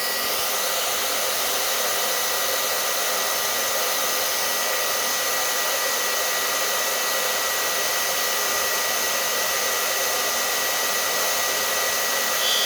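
Hair dryer blowing steadily at a heat detector to trip it, a constant rush of air with a thin high motor whine.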